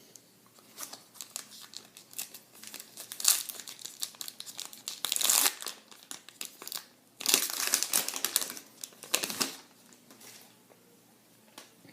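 A foil baseball-card pack wrapper being crinkled and torn open by hand, in irregular bursts of crackling, loudest about midway and again from about seven to nine and a half seconds in.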